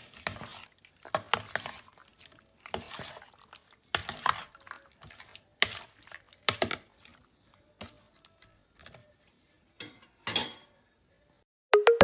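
Chunks of marinated pork being stirred in a bowl with a spoon: wet squelching and slapping in irregular strokes with short pauses, and the spoon clinking against the bowl a couple of times near the end.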